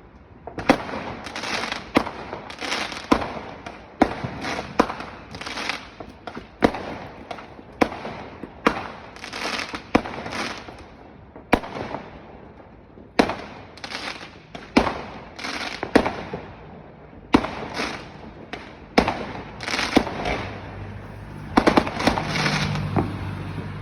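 Fireworks going off one after another: sharp bangs about once a second, each followed by a crackling, hissing tail. A low steady hum joins near the end.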